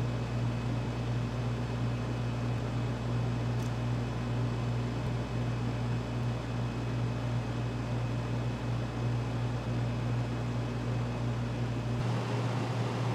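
Steady machine hum with a constant low drone and hiss; its tone shifts slightly near the end.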